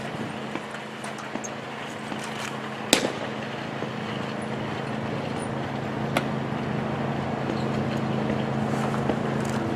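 Baseball pitch smacking into the catcher's mitt about three seconds in, a single sharp pop, followed about three seconds later by a lighter glove smack as the ball comes back. Under it runs the steady hum of a nearby engine, growing louder near the end.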